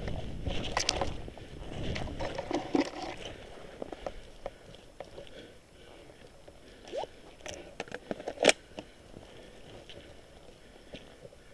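Rustling, scuffing and scattered snapping clicks of a player moving on foot through undergrowth, busier in the first few seconds, with one sharper click about eight and a half seconds in.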